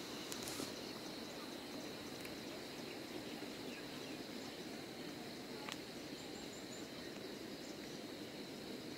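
Outdoor rural ambience: a steady high insect drone over a soft, even hiss, with a few faint distant bird chirps and two brief clicks, one near the start and one about halfway through.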